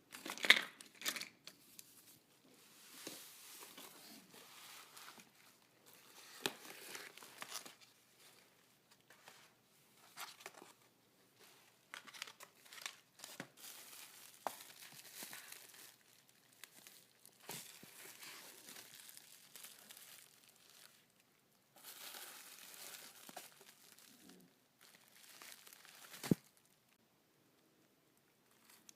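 Packaging being crinkled, rustled and torn by hand in irregular stretches, with a few sharp clicks, the loudest near the start and about 26 seconds in.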